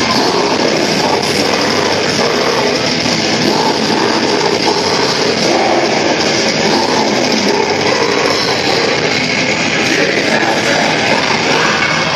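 Death metal band playing live, with distorted electric guitars and drums in a dense, loud, unbroken wall of sound, heard from within the crowd.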